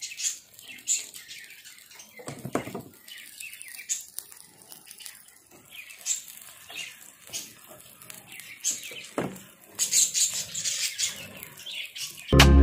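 Small birds chirping in short, high calls that recur every second or so, with a brief handling noise about two and a half seconds in.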